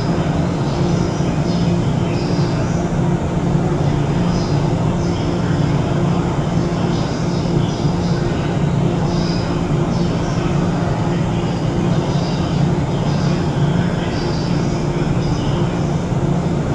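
Steady mechanical hum from a JNR 185 series electric train standing at the platform with its equipment running, while its destination rollsign turns. Fainter higher sounds come and go above it.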